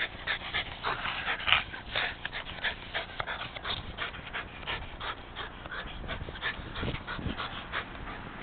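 Rat terrier panting in quick, noisy breaths close to the microphone, with a ball in his mouth, out of breath from running for it. A single sharp click comes about a second and a half in.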